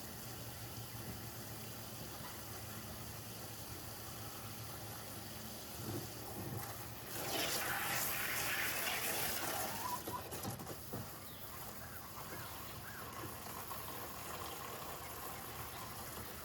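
Water running steadily outdoors, swelling into a louder gush for about three seconds around seven seconds in.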